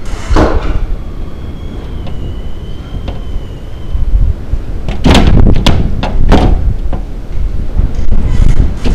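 Several sharp knocks or bangs, like a loose door or boards banging: one about half a second in, a quick cluster a little past the middle, and more near the end. They sit over a steady low rumble of wind on the microphone. A faint thin whistling tone wavers for a few seconds early on.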